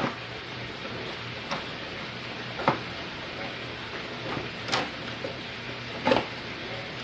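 Cardboard tinfoil box being torn open by hand, its glued flap stuck fast: about five short, sharp tears and cracks, the loudest about two and a half seconds in and near the end.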